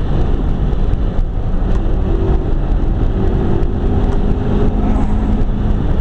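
McLaren 12C's twin-turbo V8 running hard at speed, heard from inside the cabin under heavy road and tyre noise. From about two seconds in the engine note holds steady for a few seconds.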